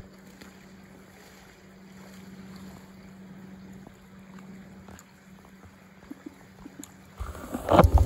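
Faint steady outdoor background with a low hum. About seven seconds in, loud rubbing and knocking starts: handling noise on the smartphone's microphone as the phone is moved.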